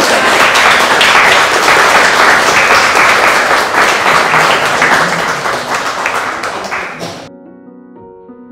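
Audience applauding, a dense crowd of clapping hands that cuts off suddenly about seven seconds in, leaving soft background music.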